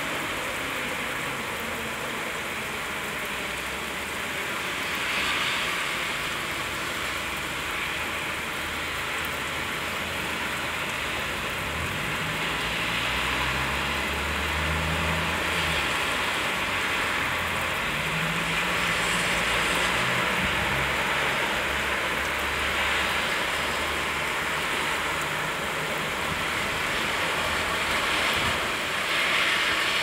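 Steady rain hiss, with a low rumble that comes and goes through the second half.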